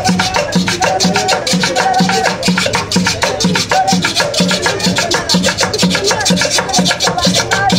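Children singing over upbeat Latin music with a quick shaker-like percussion beat and a pulsing bass note.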